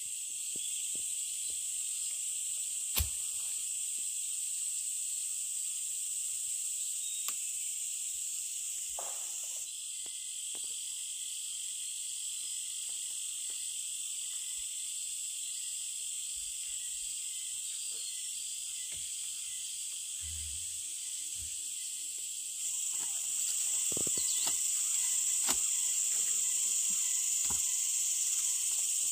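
A steady, high-pitched chorus of insects, crickets or cicadas, chirring outdoors. A fainter chirp repeats evenly through the middle stretch, with scattered light clicks and knocks, and the chorus gets louder near the end.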